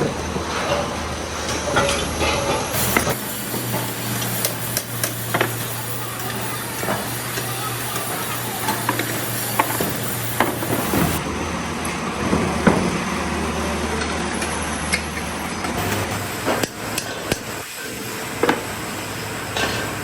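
Factory workshop noise: a steady low machine hum with scattered sharp metallic knocks and clanks.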